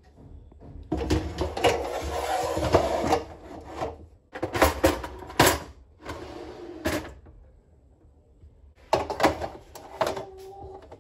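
Things being handled in a kitchen cabinet while it is cleared out: storage containers and baking trays clatter as they are moved, with a few sharp knocks in between and another clatter near the end.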